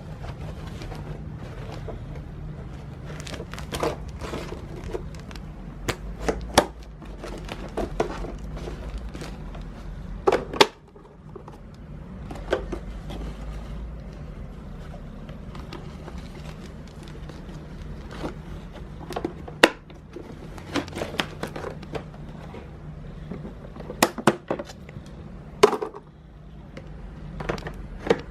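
Irregular plastic clicks and knocks from Miele S8 canister vacuum parts being handled and swapped by hand, over a low steady hum; the vacuum motor is not running.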